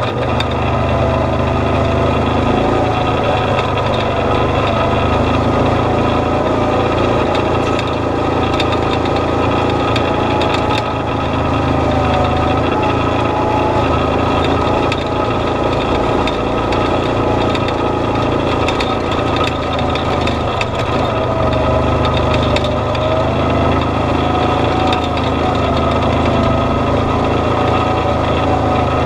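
An off-road vehicle's engine running steadily at low speed on a rough dirt trail, its pitch wavering a little, with scattered clicks and rattles.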